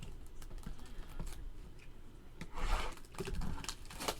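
Trading card box packaging being handled and opened by hand: a run of small clicks and taps, with louder rustling about two and a half and three and a half seconds in.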